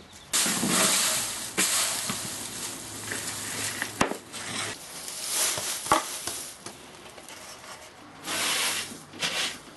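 Homemade birch-twig brush sweeping wood shavings over a concrete floor in a series of swishing strokes, with a sharp tap about four seconds in and another about six seconds in.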